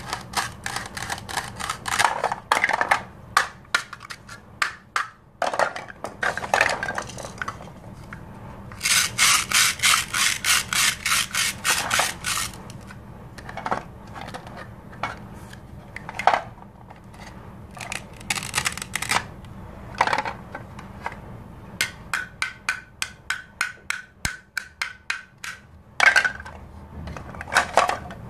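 A plastic toy knife sawing through the hook-and-loop joints of toy fruits and vegetables on a plastic cutting board, making a rapid rasp at about four strokes a second in several spells. Between the spells, hard plastic pieces knock and clack as they are handled.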